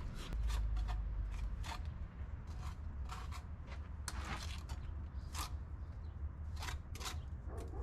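A mason's trowel scraping and tapping on mortar and brick in short, irregular strokes, over a steady low rumble.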